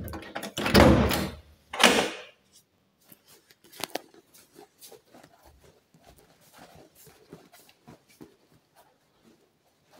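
Wooden door handled in the first two seconds: a loud rubbing thud, then a second shorter one. After that come faint scattered clicks and footsteps on a hard floor.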